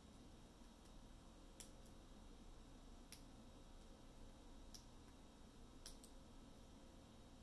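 Faint, sparse metallic clicks of a lock pick and tension wrench working the pins of a Master Lock No. 3 laminated padlock, about five sharp clicks spread over several seconds.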